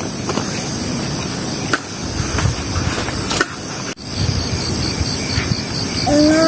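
A folding camp chair being handled and set down, with scattered clicks and knocks of its frame, for about four seconds. Then outdoor ambience: an insect chirping in a fast, even pulse, about five a second, and a bird calling with quick rising notes near the end.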